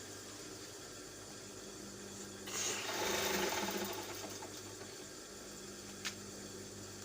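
A person blowing their nose hard once: a single long, noisy blast about two and a half seconds in that fades over more than a second. A short click follows near the end, over a steady low hum.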